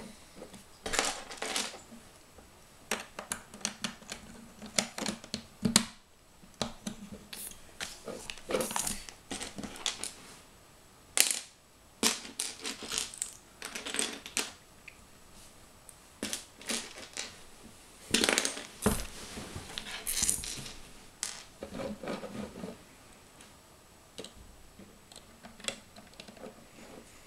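Loose plastic LEGO bricks clicking and clattering irregularly as a hand rummages through a pile of pieces on a tabletop and fits bricks onto a build.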